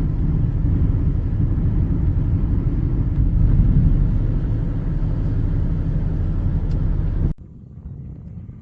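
Steady low road and wind rumble of a car driving at speed, heard from inside the vehicle. It cuts off abruptly about seven seconds in, leaving a much quieter, duller hiss.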